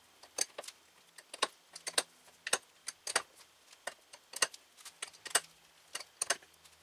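Adjustable wrench clicking and clinking against the hose end's nut as the wrench is turned and repositioned, threading the -AN fitting down until the nut seats. Sharp, irregular metallic clicks, about two or three a second.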